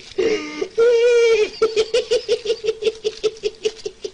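A man's high-pitched laughter: a long held note about a second in, then a quick run of short even laughs, about six a second, slowly fading.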